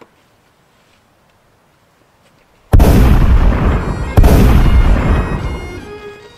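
Two loud gunshots about a second and a half apart, the first coming suddenly after near quiet; each booms and rolls away in a long echo.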